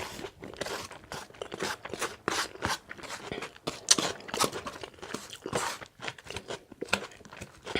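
A person chewing a mouthful of crisp salad close to the microphone, open-mouthed, in a quick irregular run of crunches.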